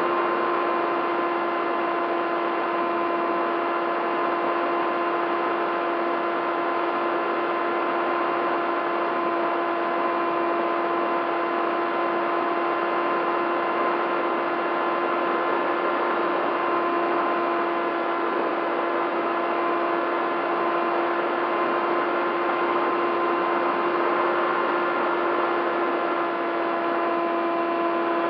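Electric motor and propeller of a Bixler 3 RC plane humming at a steady, constant pitch over a rush of air, heard from the onboard camera.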